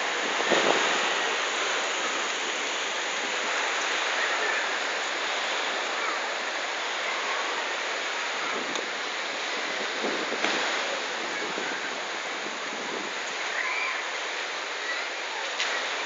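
Sea surf washing onto the beach as a steady rushing hiss, with faint voices of people nearby and a few light knocks.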